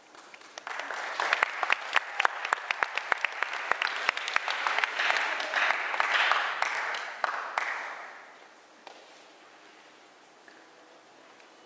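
Audience clapping after a song ends, building quickly, dense and strongest around six seconds in, then thinning out and stopping about eight seconds in, leaving quiet room noise.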